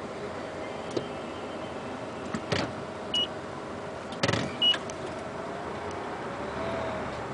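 Steady engine and road hum heard from inside a vehicle creeping along in a slow traffic jam. There are two knocks, and two short high beeps about a second and a half apart.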